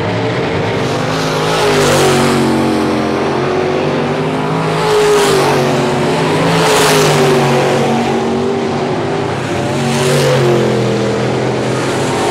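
Dirt late model race cars' crate V8 engines at racing speed, revving up and backing off through the turns. The sound swells louder about four times as the cars come past.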